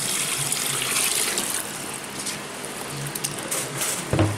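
Chicken broth poured from a plastic tub into a large aluminium stockpot of cornbread dressing, gushing and splashing into the dry mix, strongest in the first second or so and then easing as the mixture is stirred. A single knock near the end.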